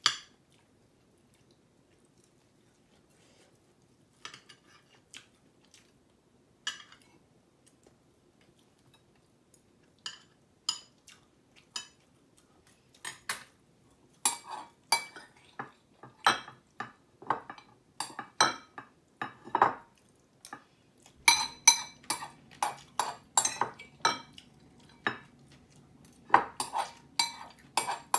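Metal cutlery clinking and scraping against a bowl while eating bibimbap. There are scattered single clinks at first, then rapid, almost continuous clinking and scraping from about two-thirds of the way in.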